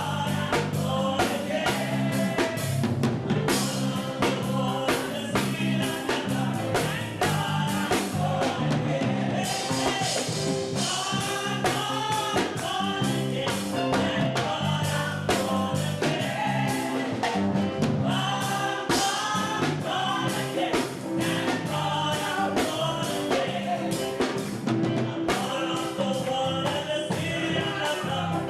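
Gospel song: voices singing a melody over a band with drums keeping a steady beat.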